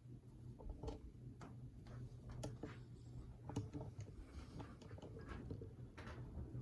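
54-inch Emerson Cornerstone CF-1 ceiling fan with two blades running on high speed, a low steady motor hum, with a scattered series of light irregular ticks.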